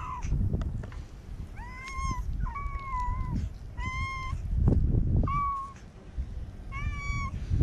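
A kitten meowing five times in quick succession, each a short, high-pitched mew of about half a second.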